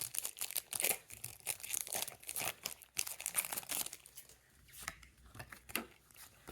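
Foil Pokémon booster pack wrapper being torn open and crinkled: dense crackling for about the first four seconds, then a few lighter rustles and clicks.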